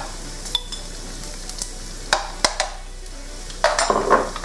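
Diced ham and minced garlic frying gently in a frying pan, a low steady sizzle, with several sharp clinks of a metal spoon against a glass jar and the pan as chili-pepper oil is spooned in. A short clatter of spoon on pan comes near the end.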